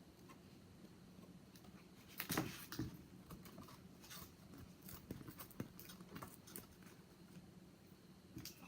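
Light handling noises of cardstock model pieces: scattered soft taps and rustles over a faint steady hum, with a louder cluster about two and a half seconds in.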